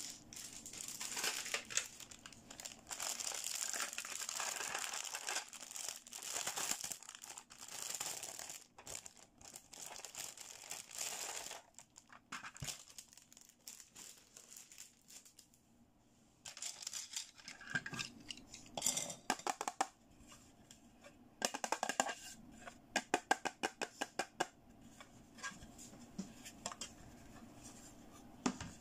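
Crinkling and rustling of plastic wrapping as a toy is unpacked, through roughly the first half. Later come separate light clicks and taps of small hard plastic toy pieces, including a quick run of clicks about three quarters of the way through.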